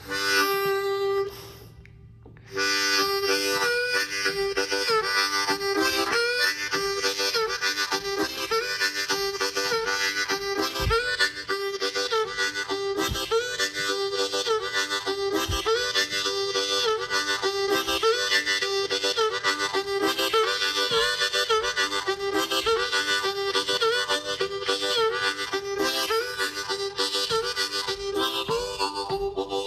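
Harmonica playing a blues riff. One short note, a pause of about a second, then a continuous run of notes with bends that swoop up and down in pitch.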